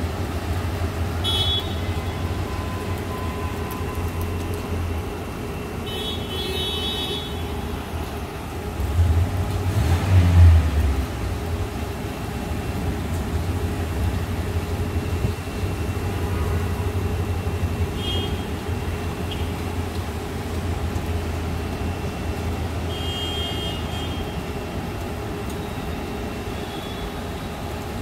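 Rain and traffic on a flooded street: cars drive through deep water over a steady low rumble. Short car-horn toots come several times, and a louder low rumble swells about ten seconds in.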